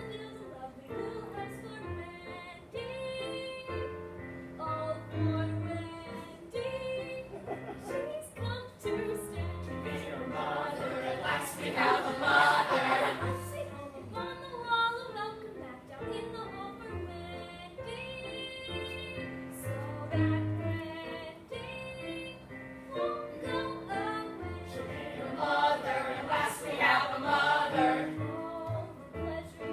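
A group of young voices singing a song together over backing music, swelling louder twice.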